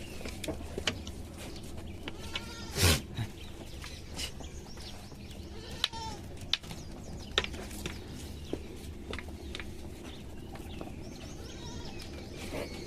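A herd of goats bleating while on the move, with one loud bleat about three seconds in and fainter calls scattered through the rest.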